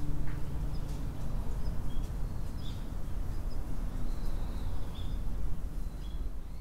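Outdoor ambience: a small bird giving short high chirps every second or so over a steady low rumble.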